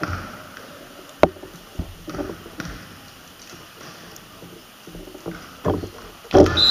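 Basketball bouncing on a hardwood gym floor: a handful of separate thuds, with a sharp knock about a second in and a louder thud near the end.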